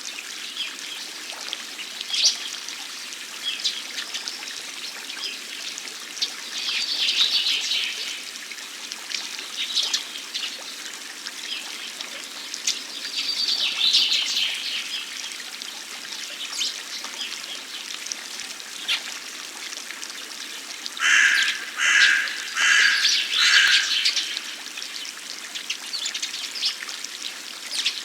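Water fountain trickling and splashing steadily, with birds chirping now and then. Four loud calls in a row come about three-quarters of the way in.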